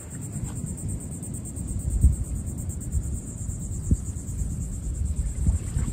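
Insects trilling steadily at a high pitch, with wind buffeting the microphone in low gusts.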